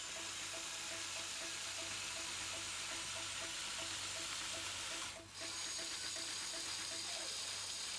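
Lego Technic electric motors and gearing whirring steadily as the rail crane winches its boom upward, with a brief break about five seconds in. A faint music beat ticks underneath.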